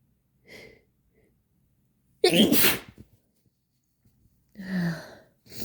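A person sneezing once, loud and sharp, about two seconds in, in a sneeze deliberately made to sound less girly. Near the end come two shorter breathy sounds, the first with a brief falling voiced note.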